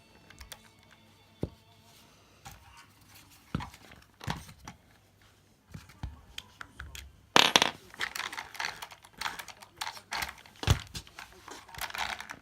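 Small plastic and metal parts of an RC car being handled and fitted by hand: scattered clicks and knocks, then from about halfway a busy run of clicking, rattling and rustling.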